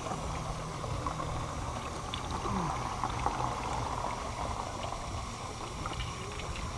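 Garden hose running, its spray splashing steadily onto a fish-cleaning table.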